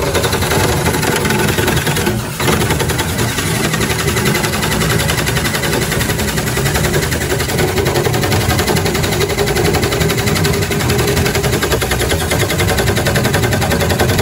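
Small engine of a homemade boat motor running steadily with a rapid, machine-gun-like popping, with a brief dip about two seconds in.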